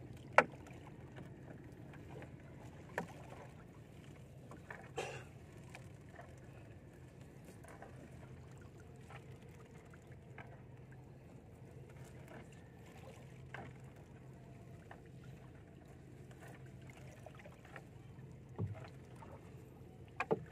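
Gill net being hauled by hand into a wooden outrigger canoe: soft rustling and dripping of wet net, broken by a few short sharp knocks against the hull, the strongest about half a second in. A faint steady low hum runs underneath.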